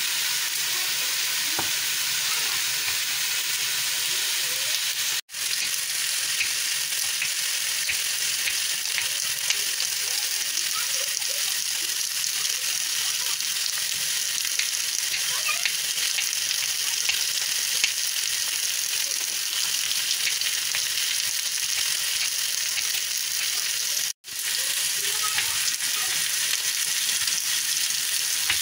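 Lamb neck pieces searing in a preheated pot, a steady sizzle, with faint knife taps on a wooden cutting board. The sound cuts out abruptly twice for a moment.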